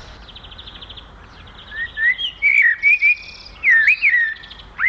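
Wild songbird singing: a fast, high trill, then a run of clear whistled notes that slide up and down.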